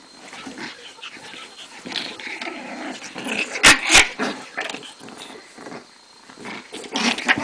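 Shih Tzu puppy growling while playing and scuffling in blankets. Two sharp clicks a quarter second apart come about three and a half seconds in.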